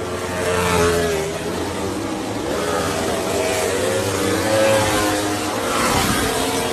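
MotoGP racing motorcycle engines revving, the pitch wavering up and down, with louder swells about a second in and again near the end.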